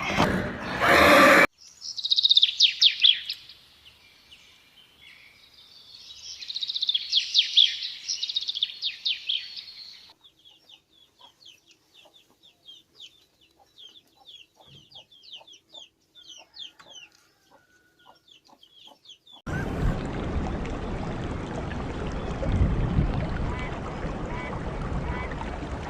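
Chickens calling in a run of separate clips: dense high-pitched calling in two loud bursts, then quieter rapid high chirps several times a second. A loud sound cuts off just over a second in, and an even rushing noise takes over about two-thirds of the way through.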